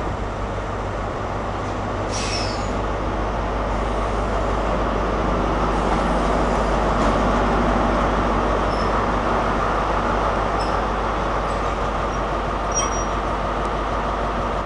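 Diesel engine of a Class 43 HST power car (43143) running as the train pulls in slowly along the platform. It grows louder over the first several seconds and then holds steady. A brief high squeal comes about two seconds in, and a few faint high squeaks come later.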